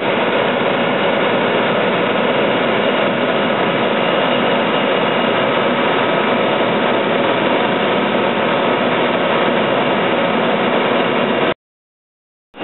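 Steady turbine engine drone on an airport ramp, a continuous rush with a thin high whine and no change in pitch. It cuts off suddenly about a second before the end.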